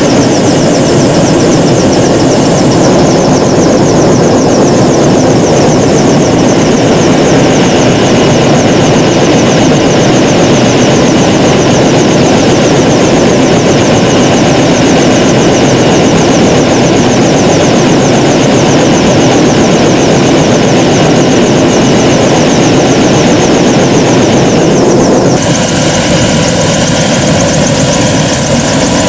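Helicopter engine and rotor running, a loud steady din; near the end the sound changes abruptly, with the helicopter sitting on the ground and its rotor still turning.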